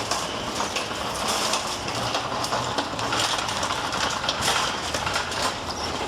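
Shopping cart rattling steadily as it is pushed across a hard store floor.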